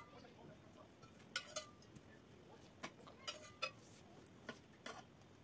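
Metal spoon clinking lightly against an enamel baking pan as liquid is spooned over layered pastry: about seven short, separate clinks with quiet between them.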